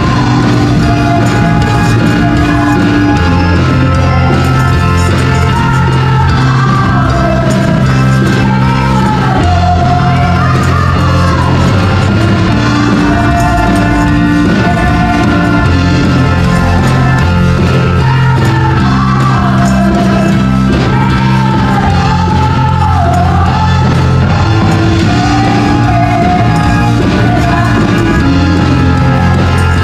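Live praise-and-worship music: a group of women singing into microphones over band accompaniment, amplified through the PA and loud throughout.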